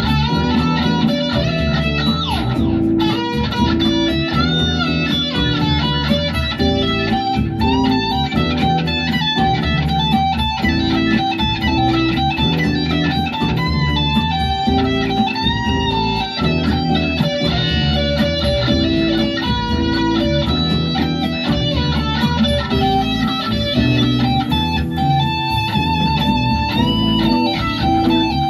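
Sunburst Les Paul-style electric guitar being played, a continuous run of notes with a downward slide a few seconds in.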